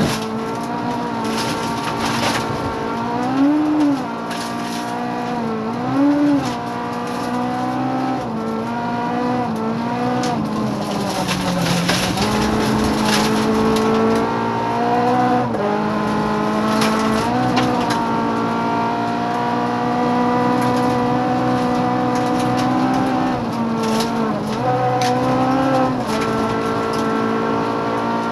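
Rally car engine heard from inside the cabin at speed on a gravel stage, its pitch climbing and dropping again and again as the driver works through the gears. Short clatters sound now and then over the engine.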